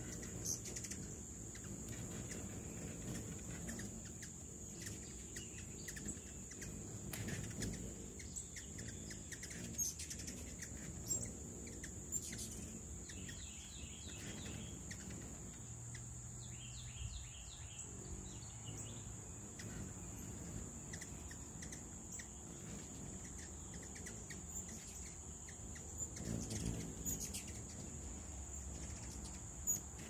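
Hummingbirds at a nectar feeder: scattered sharp chip calls, and about halfway through two short runs of rapid chittering, over a steady high-pitched drone.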